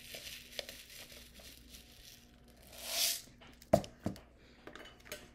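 Small glass rhinestones rattling in a plastic bag, then pouring out in a hiss that swells and fades onto a rhinestone template. Two sharp knocks follow a moment later, the first the loudest.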